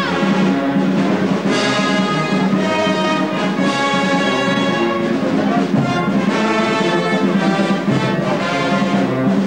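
A brass band playing as it marches, with sustained chords and the melody moving from note to note.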